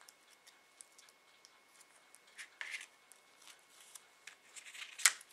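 Faint rustling and small clicks of floral tape being stretched and wound by hand around a wire flower stem, with one sharp click near the end.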